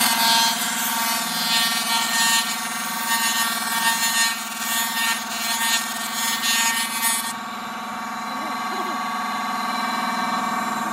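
Spindle moulder (wood shaper) cutting a profile along a thin wooden strip fed against its fence: a steady motor hum under a harsh, uneven cutting noise. About seven seconds in the cutting noise stops abruptly, and the machine keeps running free.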